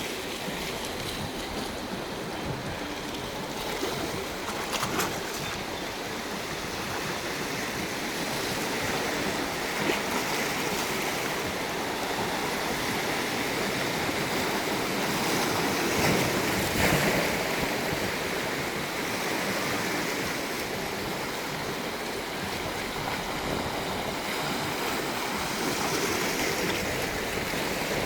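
Sea surf: waves breaking and washing in a steady hiss, swelling and easing every few seconds, loudest about two thirds of the way through.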